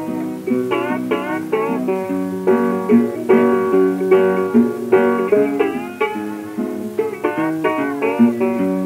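Instrumental introduction of a 1927 78 rpm blues record: banjo and acoustic guitar playing quick plucked notes, some of them sliding in pitch, with the narrow, top-cut sound of an old disc recording.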